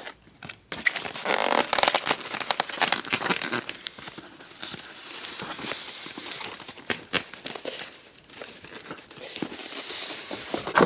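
A scale model car's box and packaging being opened by hand: rustling and crinkling with scattered clicks and scrapes, starting a little under a second in.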